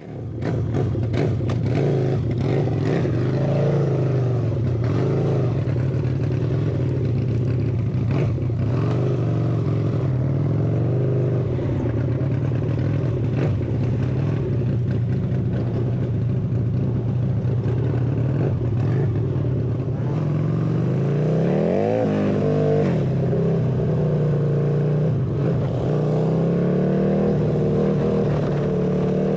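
Harley-Davidson V-twin motorcycle engine running under way, a steady cruising note that rises in pitch as the bike accelerates about two-thirds of the way through, and again near the end.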